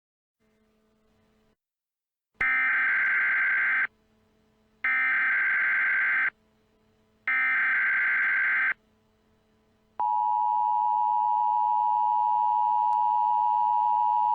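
Emergency Alert System header: three digital data bursts of about a second and a half each, a second apart. About ten seconds in, the steady two-tone attention signal starts, marking the start of an emergency alert.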